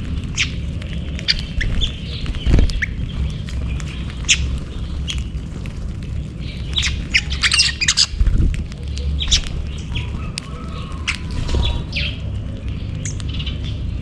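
A flock of small weaver birds calling while they feed, with many short, sharp chirps and squawks overlapping, thickest around the middle. Underneath there is a steady low rumble, and two dull thumps come about two and a half seconds in and again near eight and a half seconds.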